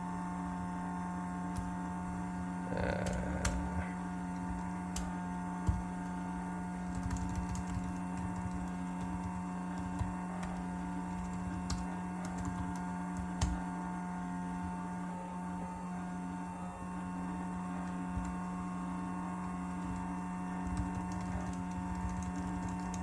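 Computer keyboard keys clicking now and then, with a few short runs of typing, over a steady electrical hum that carries a low tone and fainter higher whine tones.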